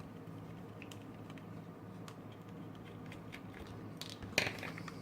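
Light clicks and taps of a tiny screwdriver on the thin plastic housing of a cheap USB desktop vacuum cleaner as it is taken apart, with a louder clatter of clicks about four seconds in.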